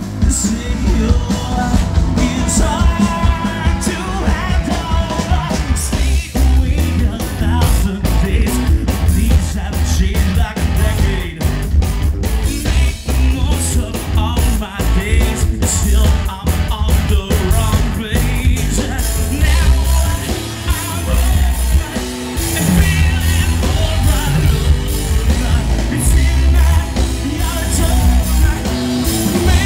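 Live rock band playing loud: bass guitar, drums and electric guitar, with a vocalist singing into a microphone. The bass is heavy, and the drums hit densely throughout.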